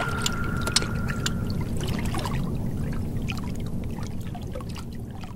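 Water sound effect: pouring, bubbling water with scattered small drip-like clicks, easing down toward the end.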